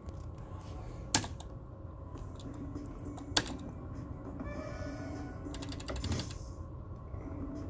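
Merkur slot machine in play: two sharp clicks of its start button, about a second in and again past three seconds, among the machine's electronic reel-spin tones, then a quick run of ticks about six seconds in.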